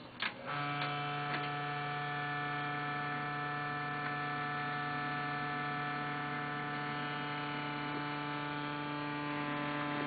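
Desktop PC making an awful, lawnmower-like noise: after a click or two, a steady droning hum with a buzzy stack of overtones starts about half a second in and holds without change.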